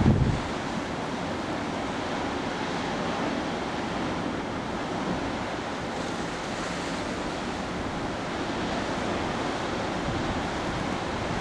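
Ocean surf breaking and churning among rocks in a narrow coastal chasm: a steady rushing wash of white water. A brief low thump comes right at the start.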